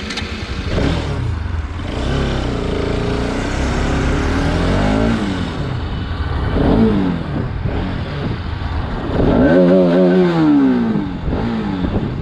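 Bajaj Pulsar RS200's single-cylinder engine heard through its stock exhaust, revving up and dropping in pitch several times as the bike accelerates through the gears. Heavy wind blast on the GoPro's built-in microphone.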